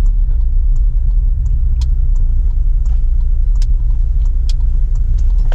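Steady low rumble of a motorcycle ride: engine and road noise mixed with wind buffeting the microphone, with a few light clicks or rattles now and then.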